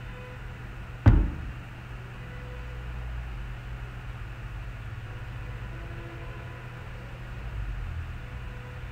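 Steady low background hum and hiss, broken about a second in by a single sharp knock that dies away quickly.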